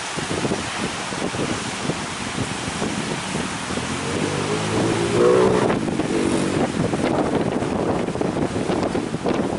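Wind buffeting the microphone over rough sea surf. About four seconds in, a short pitched drone rises briefly above the noise.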